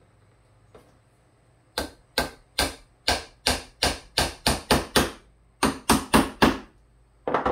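Hammer driving small finish nails into soft pine: a run of about ten blows that get quicker, a short pause, four more blows, then two quick blows near the end.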